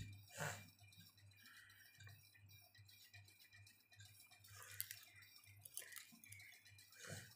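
Near silence: faint room tone with a low steady hum and a few faint, brief scratches of a felt-tip marker drawing on paper.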